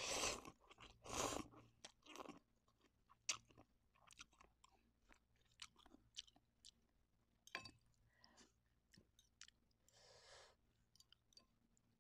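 A person slurping instant noodles, twice in the first second and a half, the loudest sounds here. Then wet chewing with many small mouth clicks and light taps, and another short slurp about ten seconds in.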